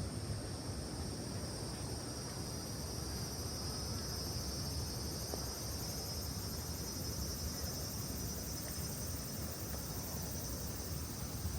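Insects chirring steadily in several high-pitched bands, one of them pulsing rapidly, over a steady low rushing noise.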